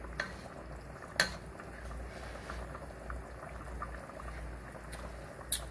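Pot of coconut milk and peas bubbling at a simmer on the stove, a steady fine crackle. Two light sharp clicks, about a second in and near the end.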